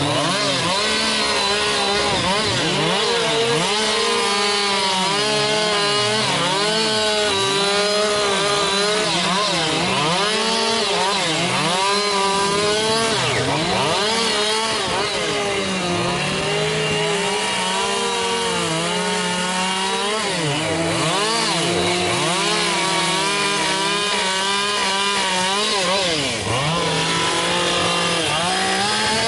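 Chainsaw running continuously while carving wood, its engine note holding steady with small shifts in pitch as the cut goes on.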